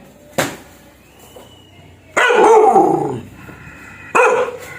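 Bali dog barking fiercely: a short bark, then about two seconds in a longer bark that falls in pitch, and another short bark near the end.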